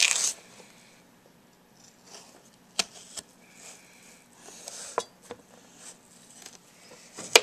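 A knife slicing a carrot lengthwise into thin julienne strips on a cutting board: a handful of sharp taps as the blade comes through onto the board, about five, spaced out with quiet between.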